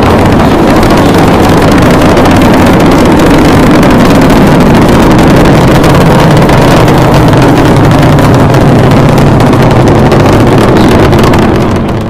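Space Shuttle launch: a loud, steady rocket-engine roar with a crackle in it, fading out near the end.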